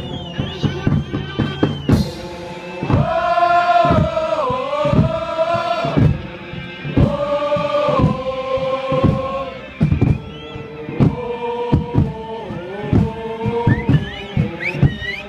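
Football supporters' end singing a slow melodic chant in unison, holding long notes, with a drum beating steadily underneath.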